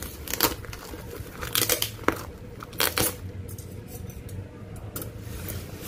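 Tearing and handling of a cardboard box wrapped in packing tape: a few short, sharp rips and scrapes in the first three seconds, then quieter rustling.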